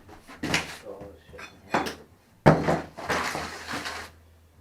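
Broken porcelain pieces of a smashed toilet tank being gathered up: several hard knocks, the loudest about two and a half seconds in, followed by a second or so of clattering and scraping.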